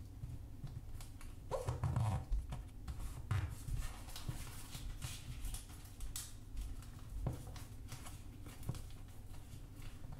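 A sheet of origami paper being folded and creased by hand: dry rustles and short crisp crackles as fingers press and slide the folds flat on a table, busiest about two to three seconds in.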